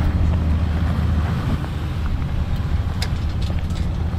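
Off-road 4x4's engine running steadily at low speed as it crawls the rock trail, with a few sharp knocks about three seconds in.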